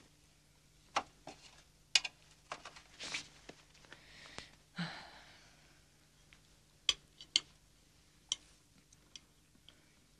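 Quiet room tone with a faint steady hum, broken by scattered small clicks and taps and a soft rushing noise about four to five seconds in.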